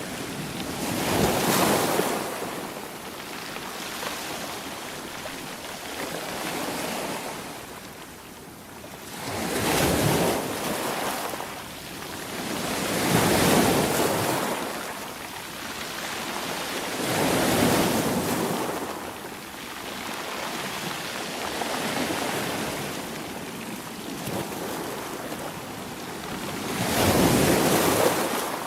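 Ocean waves breaking on the shore, each wave swelling into a loud wash and then falling away, about five times, with wind on the microphone.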